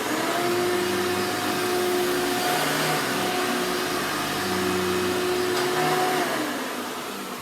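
A 1991 Hoover Elite Energy Efficient vacuum cleaner running, a steady motor whine over a rushing of air. About six seconds in the whine stops and the sound dies away as the motor winds down.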